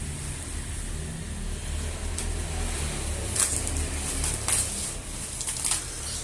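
Parcel packaging being handled: a few short, sharp crinkling rustles about halfway through and near the end, over a steady low hum.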